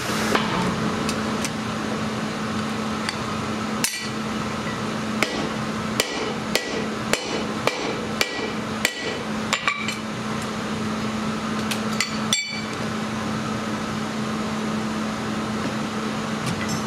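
Blacksmith's hammer striking hot steel on an anvil: sharp, ringing blows at an uneven pace, about one or two a second, that stop about twelve seconds in. A steady low machine hum runs underneath.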